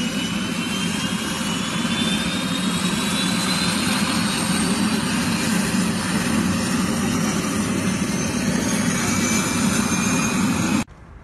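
Helicopter turbine engine running, with a steady low rumble and a thin whine that rises slowly in pitch as the engine spools up. The sound cuts off abruptly near the end.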